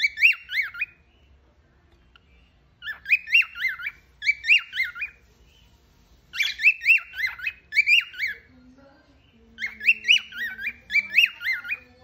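Lutino cockatiel whistling a repeated tune in several short phrases of quick rising-and-falling notes, with brief pauses between them.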